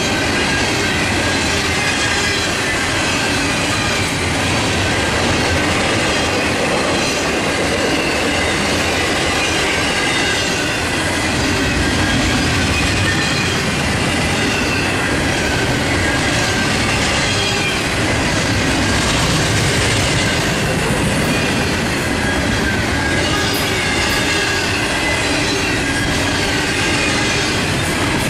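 Double-stack intermodal freight train rolling past: the steady rolling noise of the well cars' wheels on the rails, with faint high-pitched wheel squeal running through it.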